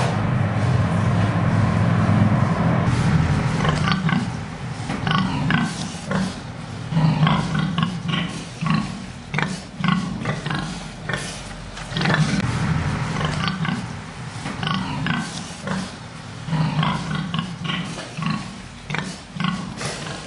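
Pigs in a fattening pen grunting in quick, short bursts, many in a row, from about four seconds in. Before that, a steady low hum is the loudest sound.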